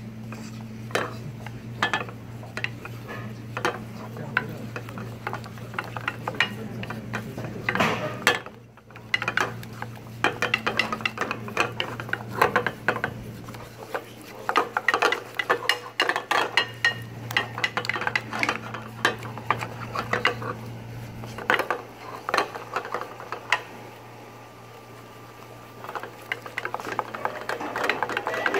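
Wooden spatula stirring and scraping butter and flour around a small stainless-steel saucepan, with many quick scrapes and knocks against the pan as a roux is cooked. A steady low hum sits underneath for much of the time.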